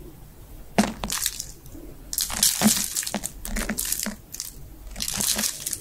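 Close-up wet mouth sounds: irregular smacking and slurping bursts with small clicks, starting about a second in.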